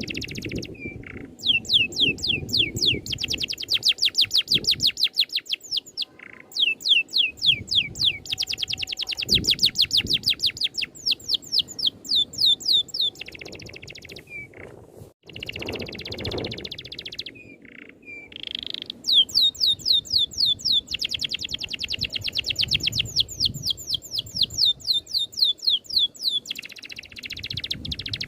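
A songbird sings rolling trills of rapidly repeated, high, downward-sweeping notes in long runs, some runs faster than others, with brief pauses between them, over a low background rumble.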